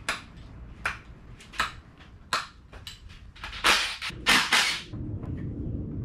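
Metal hand tools knocking and clanking on a bare diesel engine block: a few sharp clanks, then two short, harsh rasping bursts about four seconds in, followed by a low rumble.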